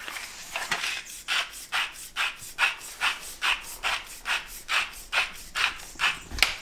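Spoon stirring dry flour mix in a mixing bowl: steady, evenly spaced scraping strokes, about two a second.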